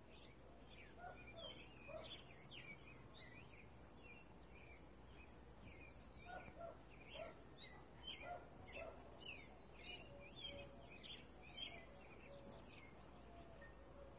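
Faint chirping of small birds, many short calls overlapping throughout, over a low steady hum.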